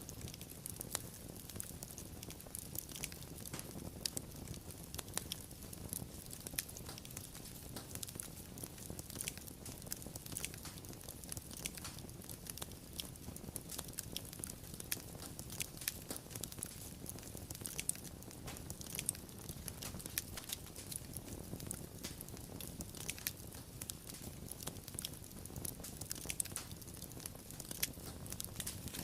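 Wood fire burning steadily, with a low rumble of flames under many small irregular crackles and pops.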